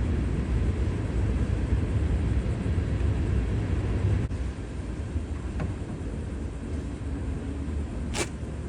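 A steady low rumble that drops in level about four seconds in, with one sharp click near the end.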